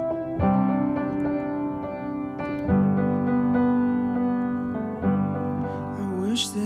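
Background pop song: sustained electric-piano chords changing about every two seconds, with a singing voice coming in near the end.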